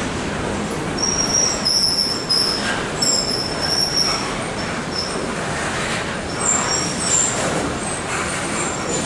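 Reading Northern freight train of boxcars rolling past: a steady rumble of steel wheels on rail, with high-pitched wheel squeals that come and go, most in the first half and again a little later.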